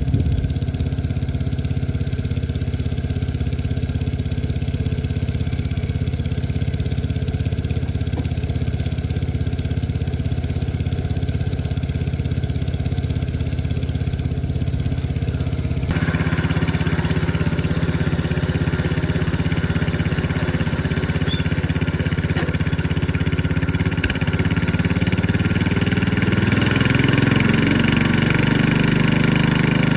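Cub Cadet 104 garden tractor's single-cylinder Kohler engine running steadily under load. About halfway through, the sound turns brighter and fuller, and over the last few seconds the engine revs up, its pitch climbing.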